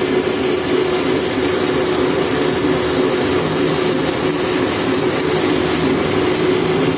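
Gear hobbing machine running, cutting a helical gear: a steady mechanical hum with one constant tone and a broad grinding noise.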